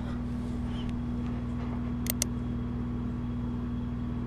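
Steady low machine hum with a fixed drone, and two quick clicks about two seconds in as a checkered end-grain cutting board is set down on a digital kitchen scale.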